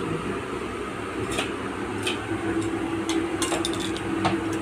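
A metal ladle clinking lightly against a pan of Maggi noodles a handful of times, over a steady hum; a steady mid-pitched tone joins about halfway through.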